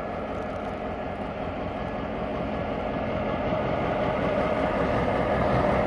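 CSX diesel locomotive 2789 creeping closer at low speed. Its engine runs steadily and grows louder throughout.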